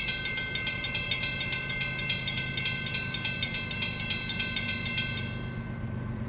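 Railroad grade-crossing warning bell ringing rapidly, about four strokes a second, and stopping about five seconds in. Under it is the steady low rumble of the approaching diesel train's cars.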